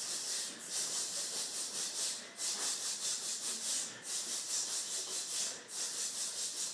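A roomful of band students making a rhythmic hissing, shaker-like noise together in repeated phrases about a second and a half long, each broken by a short pause, like measures of a rhythm exercise.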